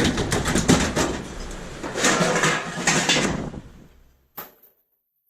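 Pieces of scrap metal clanking and rattling as they are handled and moved, with many sharp knocks and scrapes. It fades out about four seconds in, gives one small click, and then drops to dead silence.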